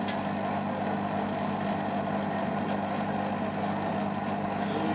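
Beko Eco Care WMA 1510 washing machine on its final spin, the drum and motor running at a steady high speed with a constant hum.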